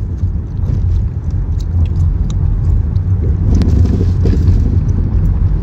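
Steady low rumble of road and engine noise inside a car's cabin, with a few faint ticks on top. It starts abruptly.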